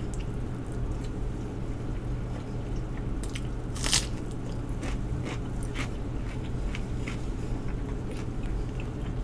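A person eating by hand, biting and chewing food with small mouth clicks throughout. There is one sharper, louder bite sound about four seconds in.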